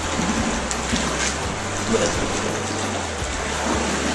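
Steady rush of creek water, with low background music underneath.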